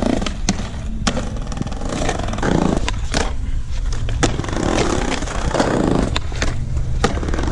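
Skateboard rolling over rough concrete: a continuous low rumble of the wheels, broken by sharp clacks at irregular intervals.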